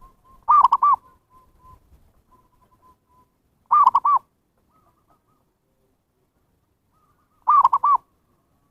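Zebra dove cooing: three short phrases a few seconds apart, each a quick run of about three rising-and-falling coo notes, with fainter cooing between the first two.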